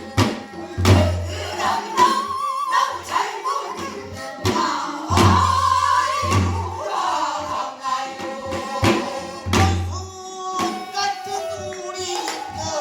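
Korean Namdo folk singing: a voice holding long, deeply wavering notes, accompanied by sharp drum strokes, some with a deep low thud.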